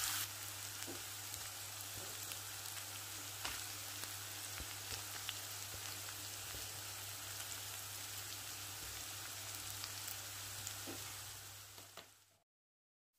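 Sliced onions sizzling in oil in a nonstick kadai: a steady, gentle frying hiss with a few faint ticks and pops, and a low steady hum underneath. It cuts off abruptly near the end.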